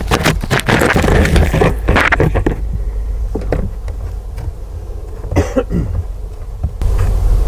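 Scraping and rustling of a microphone on a skewer rubbing against wood inside a beehive entrance for the first couple of seconds. After that there is a low steady rumble with a few scattered knocks, which may be highway noise. No clear bee hum stands out.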